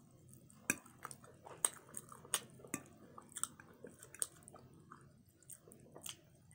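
Close-miked chewing of barbecue rib tips: soft, wet mouth sounds with many short sharp clicks and smacks at an irregular pace.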